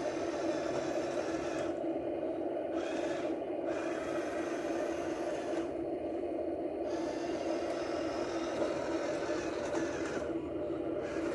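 Small electric motors and gearboxes of radio-controlled toy construction vehicles whirring steadily, with a higher gritty whirr that cuts out briefly a few times and comes back.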